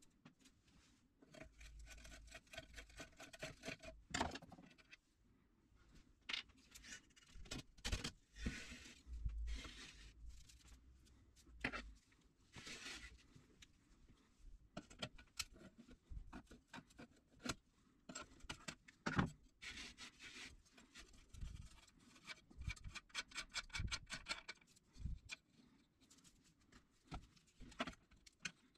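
Quiet handling noise as a rusty old car battery charger is taken apart: small metal parts and hand tools clicking, scraping and rattling against its steel chassis and the wooden bench, with stretches of quick ticking and one louder knock about two-thirds of the way through.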